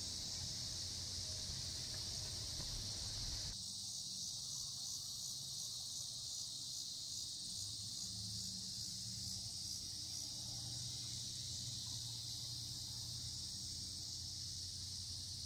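A chorus of cicadas singing in a steady, high-pitched buzz.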